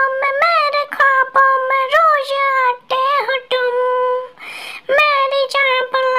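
A high-pitched, childlike voice singing alone without accompaniment, holding long, slightly wavering notes with short breaks between phrases. A breathy rush of air comes between notes about four and a half seconds in.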